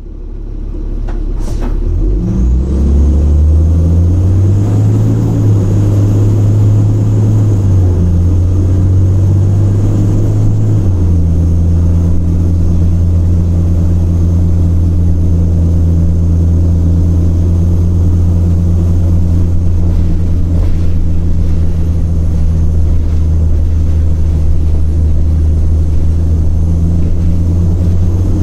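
Cummins ISL diesel engine of a 2006 Orion VII transit bus idling with a loud, deep, steady rumble. Its note shifts a few times in the first ten seconds or so, then holds steady.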